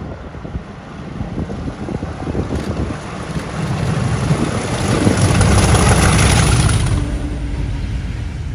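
Class 50 diesel locomotive 50050 with a Class 66 coupled behind, working hard under power as it approaches and passes beneath. The engine noise builds to its loudest between about five and seven seconds in, then eases off, with wind buffeting the microphone throughout.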